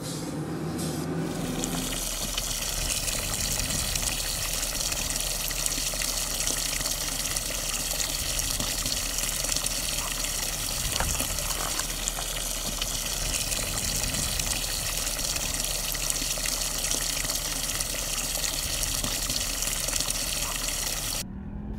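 Water pouring steadily from a spout into a wooden log trough, a constant splashing rush that comes in about a second and a half in.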